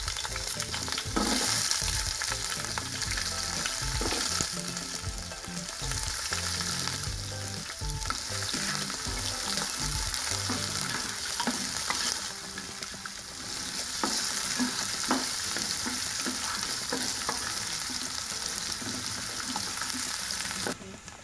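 Chopped onions sizzling in hot oil and ghee in a non-stick pot, stirred with a wooden spatula that scrapes and taps against the pan. The sizzle drops away sharply just before the end.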